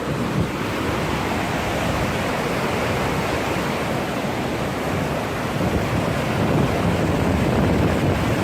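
Steady rushing roar of a waterfall, with wind buffeting the microphone.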